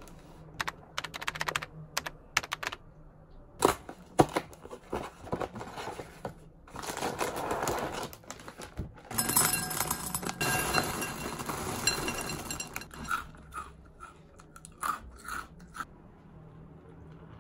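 Oreo O's cereal poured from its cardboard box into a glass bowl. First come scattered clicks and box rustling, then a dense rattling pour of pieces onto the glass through the middle, then a few light taps. Near the end milk is poured softly into the bowl.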